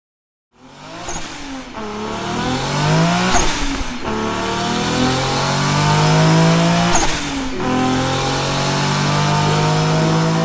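A car engine accelerating hard through the gears: its pitch climbs steadily, then drops at each of three shifts.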